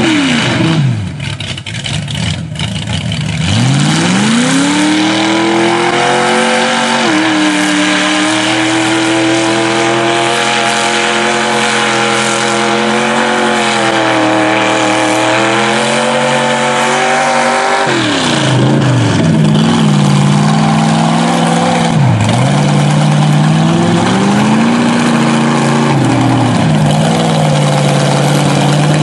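A GMC mega mud truck's engine revving hard as it pushes through a mud pit. The revs drop at the start, climb again after about three seconds and are held high for about twelve seconds, then fall and rise in several shorter revs near the end.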